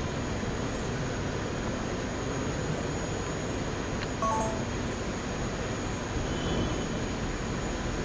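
Steady room noise of a large hall, with a short electronic beep of a few quick stepped tones about four seconds in.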